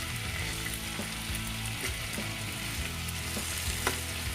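Marinated chicken leg pieces sizzling as they pan-roast over a medium-to-low flame, a steady frying hiss with a few faint clicks.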